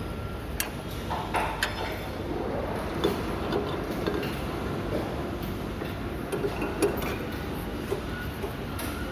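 Factory assembly-floor noise: a steady background hum with scattered metallic clinks and knocks from parts and tools being handled on a heavy-equipment assembly line.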